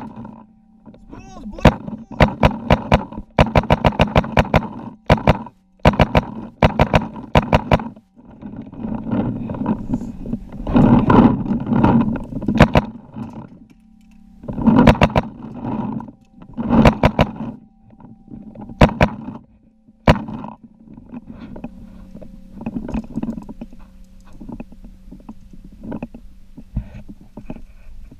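Paintball markers firing in rapid strings of shots, some at about ten shots a second, with short pauses between strings.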